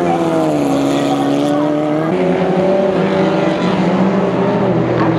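FJ1600 single-seater race car engines running hard, several engine notes at once. One note drops in pitch over the first second, and the notes shift about two seconds in.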